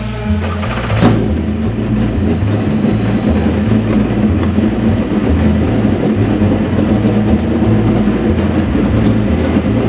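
Cadillac DPi-V.R racing prototype's V8 engine idling steadily. It comes in abruptly about a second in, as the intro music cuts off.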